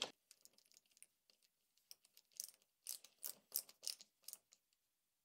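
A hand ratchet clicking faintly in a few short runs about halfway through, as the bolts holding a tablet mount to a motorcycle crossbar are driven in.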